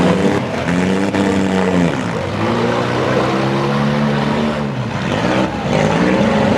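Front-wheel-drive derby cars' engines revving hard, their pitch rising and falling repeatedly, over a steady wash of engine noise.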